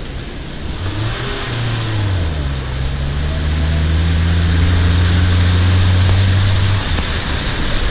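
Lada Niva's engine pulling steadily as it drives through a shallow ford, with the hiss and splash of water thrown up by its wheels. The engine note drops about two seconds in, holds steady, then falls away near the end.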